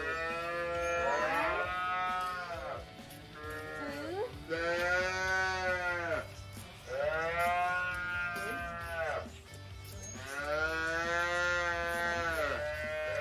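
Dairy calves bawling: four or five long moos of about two seconds each, rising then falling in pitch, with short gaps between them.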